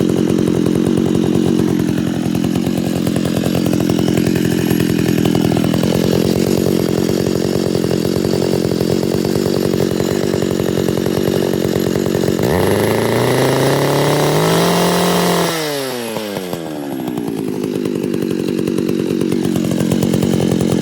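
Poulan Pro 405 Plus 65cc two-stroke chainsaw running. It idles steadily, is revved sharply about twelve seconds in, drops back quickly to idle, then gets a shorter, lighter rev near the end.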